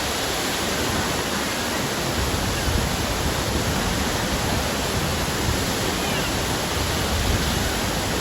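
Waterfall: water falling with a steady, even rushing noise.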